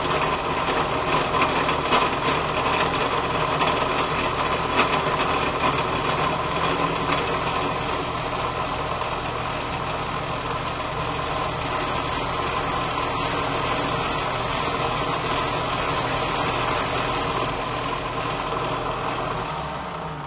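Drill press running with a four-flute end mill cutting a groove in a metal block, the work fed slowly by hand: a steady machine hum with a fine rapid rasp of the cutter. Near the end the motor is switched off and the sound winds down.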